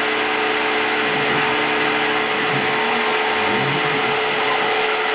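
Tormach CNC milling machine running: a steady whirring hiss with a constant tone from the spindle, and lower tones that rise and fall through the middle as the axes move.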